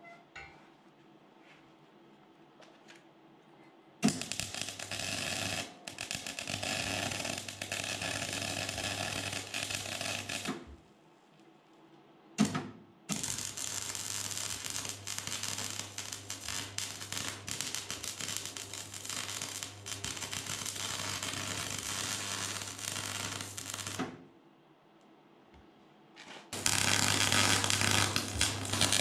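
Electric arc welding on steel: crackling, sizzling arc over a steady mains buzz, in three runs of several seconds each with short pauses between, and a brief strike of the arc in the second pause.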